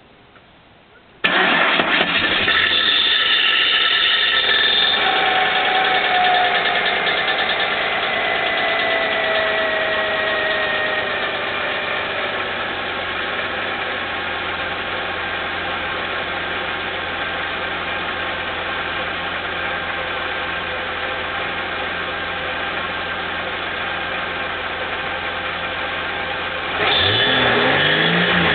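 Holden VS Commodore engine starting about a second in and running loud at a fast idle with a whine that slowly drops in pitch as it settles. This is the loud noise on starting that the owner is asking about. Near the end the engine is revved a few times.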